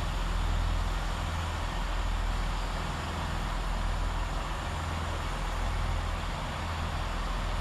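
Class 165 diesel multiple unit's engines running steadily with a low hum as the train comes in to terminate.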